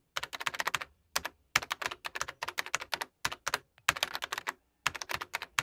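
Computer keyboard typing in quick runs of keystrokes, broken by short pauses, as text is typed out.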